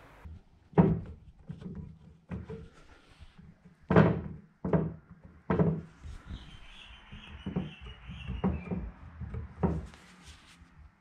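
A run of sharp knocks and thumps from wooden furniture parts and a plastic glue bottle being handled on a workbench while getting ready for a dowel glue-up. A faint high squeak runs for a few seconds in the middle.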